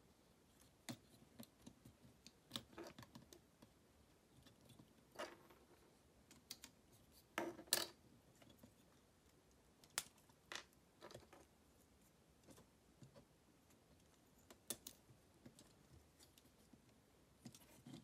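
Scattered light clicks and taps of hard plastic Gunpla parts being handled and fitted together, at an irregular pace, with the loudest pair of clicks about halfway through.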